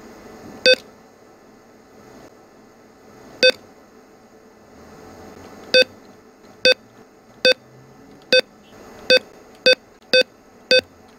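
ATM key-press beeps: ten short beeps, all at the same pitch, each confirming a button or keypad press. Two come a few seconds apart, then a quicker run of eight, about one a second or faster, starts about six seconds in as the digits of an account number are keyed in.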